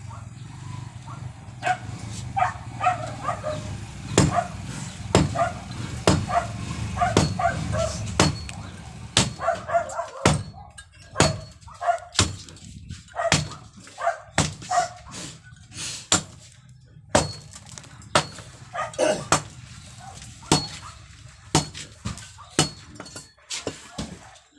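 Repeated sharp strikes, roughly one a second, each with a short ringing tone, typical of hammering on concrete during drainage repair work. A low steady rumble underneath stops suddenly about ten seconds in.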